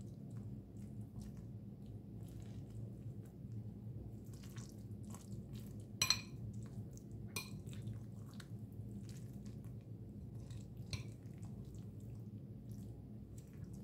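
Metal spoon stirring a soft, moist bread-and-onion mixture in a glass bowl: soft squelching with scattered clicks of the spoon against the glass, the sharpest about six seconds in, over a steady low hum.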